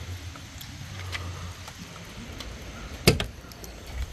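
Scattered light clicks and taps from a car being handled, then one sharp knock about three seconds in, like a car door or body lid being shut or opened.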